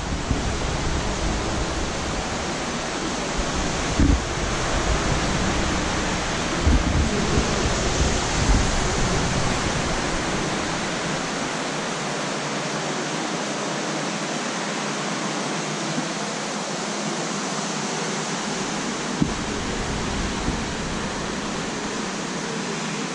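Steady, even rushing hiss, like air noise from a large room's ventilation, with a few brief low thumps in the first half.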